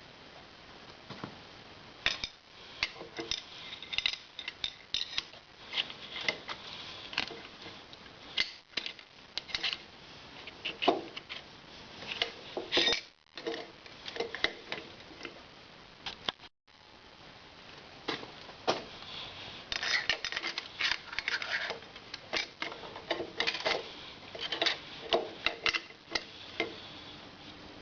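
Metal engine parts and hand tools clinking, tapping and scraping against each other in irregular knocks while an Evolution Sportster rocker box is being fitted.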